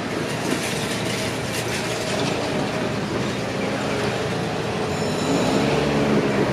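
Shizuoka Railway electric commuter train running on the track: a steady rumble of wheels on rail with a few faint clicks. Several motor tones rise and fall in pitch about five seconds in.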